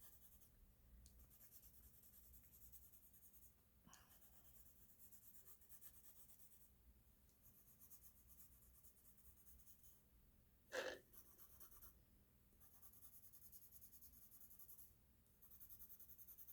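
Faint pencil strokes scratching on paper in several stretches as a drawing is sketched, with a brief soft breath about eleven seconds in.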